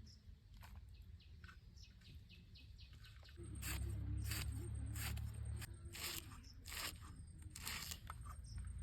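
Repeated broad scraping or swishing strokes, about six of them a little under a second apart, over a low hum that starts a few seconds in. Faint bird chirps come in the first few seconds.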